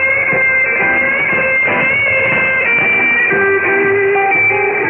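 Music from a shortwave pirate radio broadcast, received in AM on 6925 kHz. It plays steadily, with nothing heard above about 3.5 kHz because of the receiver's narrow AM bandwidth.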